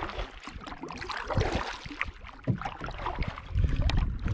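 Kayak paddle strokes: the double-bladed paddle dipping and splashing in the water on alternate sides, with water dripping and scattered knocks. A louder low thumping comes near the end.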